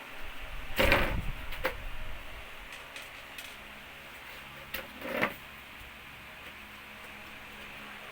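Parts and small screws being handled during a TV teardown: a knock with a rustle about a second in, a few light clicks, and another short knock about five seconds in.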